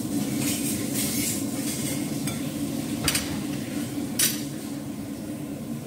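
Kitchen utensil scraping, with two sharp clinks about three and four seconds in, over a steady low hum.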